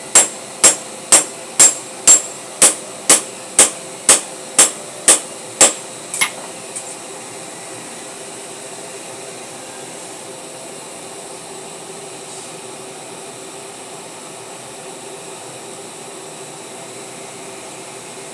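Power hammer striking at an even pace of about two blows a second, each blow a sharp metallic ring. About twelve blows, then a lighter final one about six seconds in, after which the blows stop and only a steady background hum remains.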